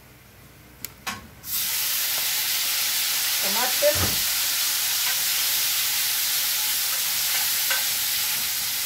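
Cherry tomatoes tipped into a pan of hot olive oil and lightly browned garlic: a couple of knocks, then a loud sizzle breaks out about a second and a half in. The sizzle goes on steadily while a wooden spoon stirs the tomatoes.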